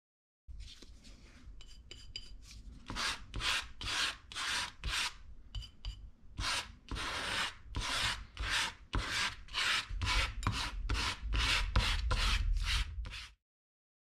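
A hand rubbing back and forth over paint-covered paper in repeated strokes, about two a second, coming closer together toward the end. A low rumble runs under the last few seconds.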